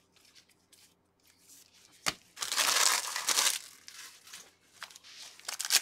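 Foil wrapper of a Prizm basketball card pack being torn open and crinkled: a sharp click about two seconds in, then about a second of loud crinkling that fades into light rustling.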